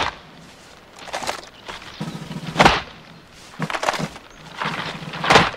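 Marine drill platoon's silent rifle drill done in unison: hands slapping rifles and boots striking the turf in sharp hits. The loudest hits come about two and a half seconds in and near the end, with smaller ones between.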